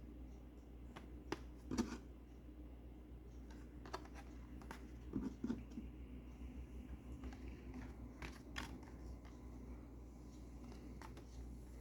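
Handling of a Hot Wheels blister-card package: scattered light clicks and crinkles of plastic and card, a few louder ones about 2, 5 and 8 seconds in, over a low steady hum.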